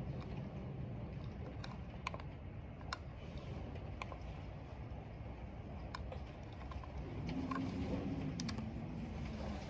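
Computer keyboard being typed on in sparse, irregular keystroke clicks, over a steady low rumble of wind and rain.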